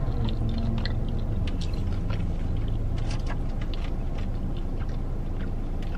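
Chewing a mouthful of breaded fried chicken tender with the mouth closed: scattered soft clicking mouth sounds over a steady low hum inside the car's cabin.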